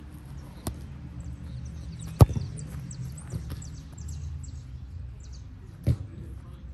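A football struck three times with sharp kicks, the loudest about two seconds in, against a steady low outdoor background.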